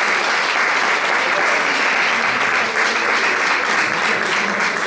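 An audience of a few dozen people applauding, a steady round of clapping.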